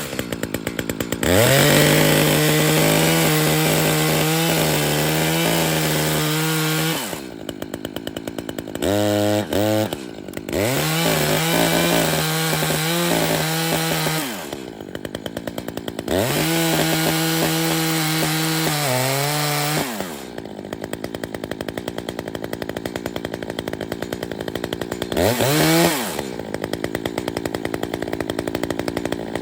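Chainsaw at full throttle cutting through a pine, held in three long cuts of about four to six seconds each, dropping back to a ticking idle between cuts, with a quick rev near the end.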